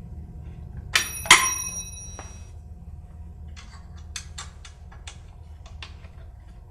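A small metal object strikes a hard surface twice in quick succession and rings briefly with a clear metallic tone, followed by a scatter of light clicks and taps of handling.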